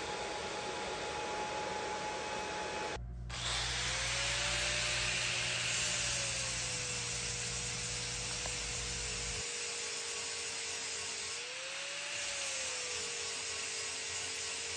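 A TIG welding arc hissing steadily on a steel plate for about three seconds, then, after a sudden break, an angle grinder grinding the welds down flat, its motor tone holding steady and briefly rising and falling back near the end.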